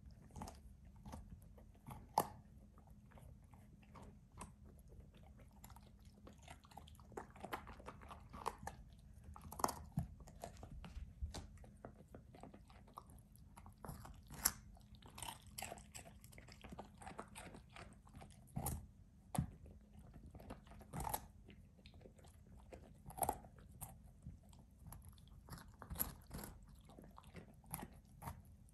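A puppy biting and chewing a raw carrot: irregular sharp crunches, some much louder than others, with short pauses between bites.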